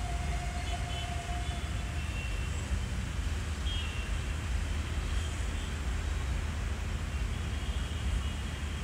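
Steady low rumble of a distant WDM3D diesel locomotive, with its ALCO engine, as it approaches slowly.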